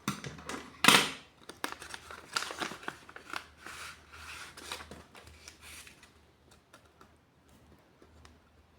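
Paper of a handmade papercraft blind bag being handled and opened, with short crinkling rustles and clicks. The loudest comes about a second in, and the sounds die away after about six seconds.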